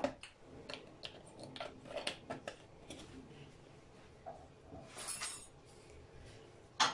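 Light kitchen handling noises: scattered small taps and clicks of containers being set down and handled on the counter, with a short rustle about five seconds in and a sharper knock near the end.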